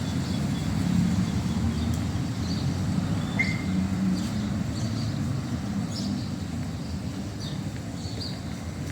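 City street ambience: a steady low rumble of road traffic, with small birds chirping repeatedly above it.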